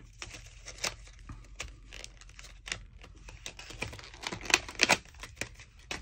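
Plastic blister pack and card packaging of a pen being torn open and handled: a run of crackles and rips, with sharper cracks near the start and at about four and a half and five seconds in.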